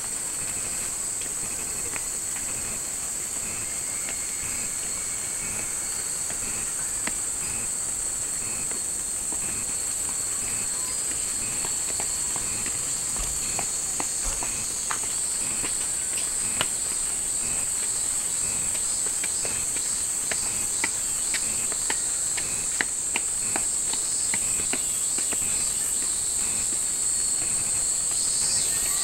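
Cicadas in a steady, high-pitched chorus, with scattered faint high clinks and ticks over it.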